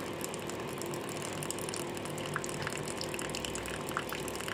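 Water pouring in a steady thin stream into a paper cup of instant noodles, filling it.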